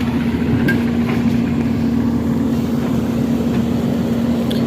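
Excavator diesel engine running steadily, a constant drone with a couple of faint clicks.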